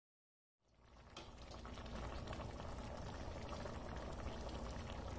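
A pot of chana dal and chicken simmering on the stove, its steady bubbling fading in out of silence about half a second in.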